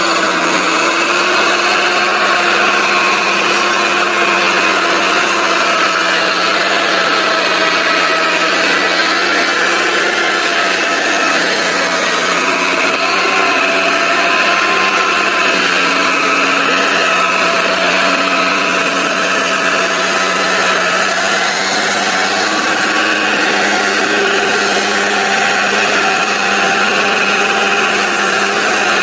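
John Deere 5090E tractor's diesel engine running steadily under load as its front blade pushes soil, its pitch wavering slightly.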